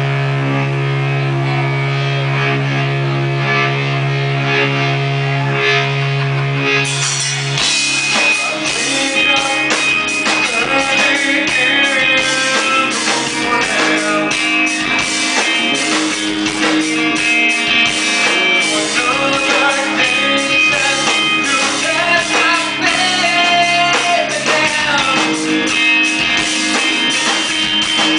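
Live rock band playing a song: it opens on a steady held note for about seven seconds, then the drums and full band come in together with guitar.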